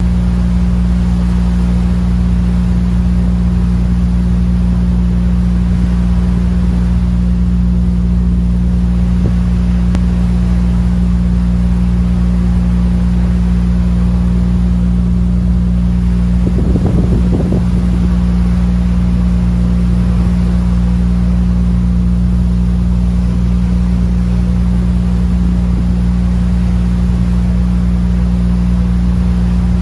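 Car ferry's diesel engines droning steadily, a deep hum made of several steady low tones, with a haze of wind and water noise over it. A brief low rumble breaks in about halfway through.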